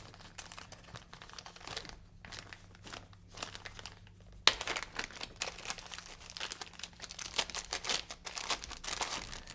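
Crinkling and rustling of plastic as the JT replacement soft ear pieces are handled, with irregular crackles throughout and one sharp click about four and a half seconds in.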